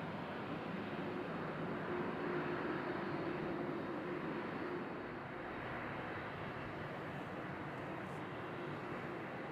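Boeing 767-300's twin jet engines running at idle as the airliner taxis: a steady rushing hiss with a faint low hum and no sharp events.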